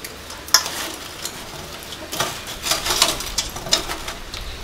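A metal pot lid handled on a cooking pot, giving several sharp clinks: one about half a second in, then a cluster of clinks between two and four seconds in.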